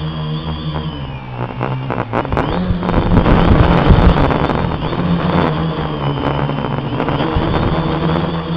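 Quadcopter's electric motors and propellers running with a steady whine, picked up by the camera riding on it. From about two seconds in, a louder rushing, rattling noise covers it for a few seconds as the quadcopter flies forward, then the even motor drone returns.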